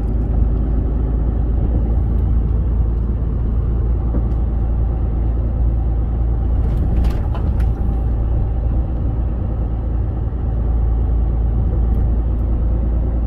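Truck cab interior while driving: steady diesel engine and road rumble. About seven seconds in comes a short burst of clacking, the rattle that happens on left turns and sounds like something in the overhead cab cabinet falling against the side wall.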